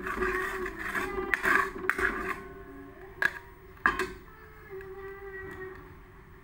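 Metal spatula stirring and scraping blended spice paste in a wok, with two sharp clanks of the spatula against the pan a little past three seconds and near four seconds in.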